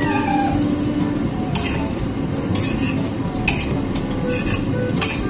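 A utensil stirring and scraping pancake batter in a ceramic bowl, with a string of short, sharp clinks against the bowl.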